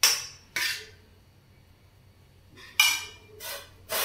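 Steel ladle clinking against stainless steel plates and a steel pot while curry is served onto rice: a few sharp metallic clinks, two close together at the start and more near the end, with a quiet gap between.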